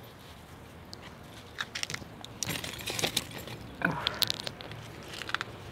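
A string of short crackles and rustles, starting about a second and a half in, as garden plants and a woven plastic shopping bag of picked vegetables are handled.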